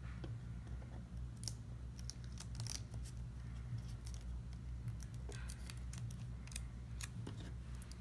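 Holographic sticker paper being peeled from its backing and pressed onto a small metal cowbell by hand: scattered soft crinkles and clicks over a steady low hum.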